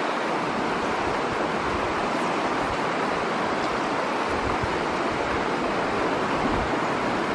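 Steady rush of a fast-flowing river, water running over a shallow rocky riffle.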